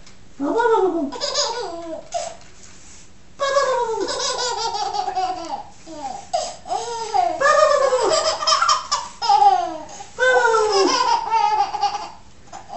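A ten-month-old baby laughing hard in repeated bouts of high-pitched laughter, with a pause of about a second near the start.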